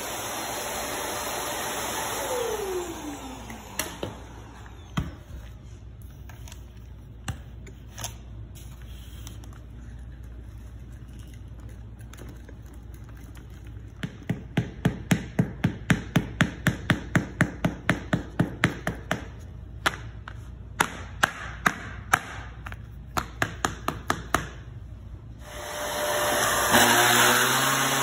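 Hoover upright vacuum cleaner running, then switched off, its motor winding down with a falling whine. After a lull with a few clicks, a plastic container is tapped rapidly, about three or four taps a second for ten seconds, shaking fine dirt out onto the rug. Near the end the vacuum starts up again.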